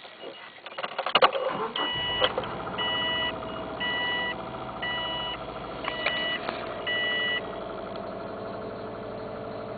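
Cold start of a 2002 Subaru Impreza WRX's turbocharged flat-four: the engine cranks and catches about a second in, then idles with a fast ticking that keeps step with engine speed. It is a cold-engine tick that fades once the engine is warm, of unknown cause. Six evenly spaced two-tone beeps sound over the first several seconds of running.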